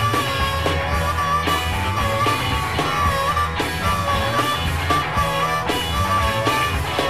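Rock music with a steady drum beat, bass and guitar, and a held, wavering melody line over it.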